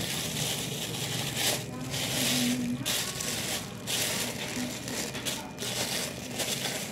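Plastic wrapping and bags crinkling and rustling in irregular surges as they are pulled and crumpled right up against the microphone.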